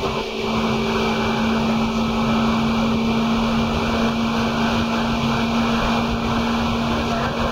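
Seibu 2000-series electric commuter train (set 2055F) running at steady speed, heard inside the car: loud, steady running noise with a constant low hum from the traction motors and gears.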